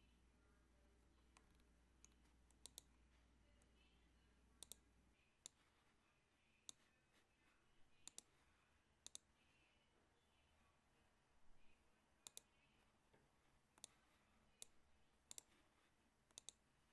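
Near silence broken by faint, sharp clicks, scattered irregularly about once a second, some in quick pairs. A low hum stops about five seconds in.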